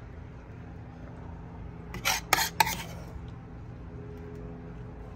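Three quick clinks of kitchen utensils or dishes about two seconds in, over a steady low hum.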